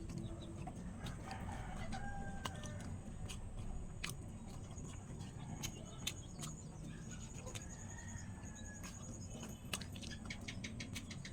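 Chickens clucking in the background, over scattered sharp mouth clicks of chewing banana peel. A high, rapid trill runs through the middle.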